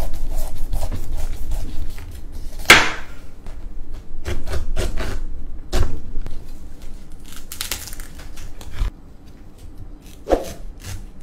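A large kitchen knife cutting through a whole pineapple on a wooden cutting board: irregular crunching cuts through the tough rind and crown, with knocks of the blade and fruit on the board, the sharpest a little under three seconds in.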